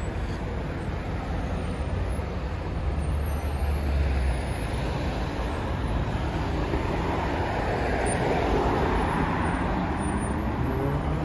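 Street traffic: a steady hum of passing car engines and tyres, swelling louder in the second half as a vehicle passes close by.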